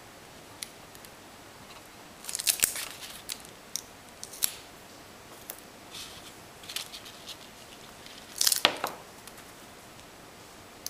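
Paper crinkling and rustling as a layered paper flower is handled and glued onto a card, in two short bursts about two seconds in and near the end, with scattered light clicks and taps between.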